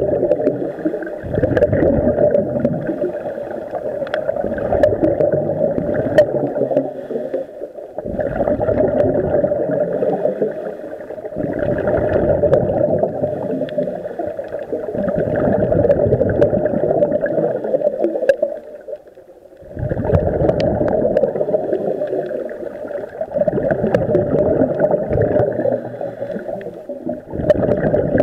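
Scuba regulator breathing underwater: exhaled bubbles rushing and gurgling past the camera in spells a few seconds long, with short gaps between breaths, the longest gap about two-thirds of the way through.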